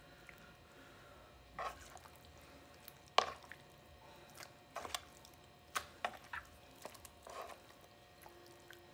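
Wet squelches and soft slaps of hands rubbing a mustard and seasoning coating into raw flounder fillets on a wooden cutting board. The sounds are faint and come as separate short smacks every second or so.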